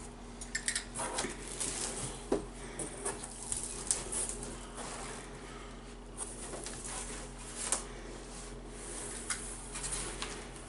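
Cardboard box flaps being pulled open and the foam packing inside handled: scattered rustles, scrapes and light knocks.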